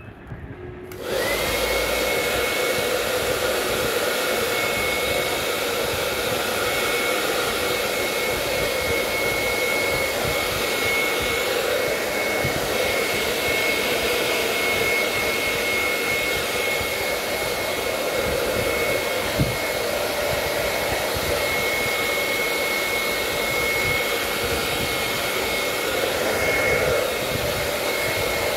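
Handheld hair dryer switched on about a second in, then running steadily: rushing air with a thin high whine over it, blowing a dog's wet coat dry after a bath.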